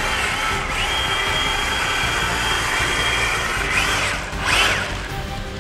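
Electric drive motors of a Spin Master All-Terrain Batmobile RC whining as it drives through pool water, its wheels splashing. The whine rises in pitch about a second in and holds steady, then revs up and down twice near the end.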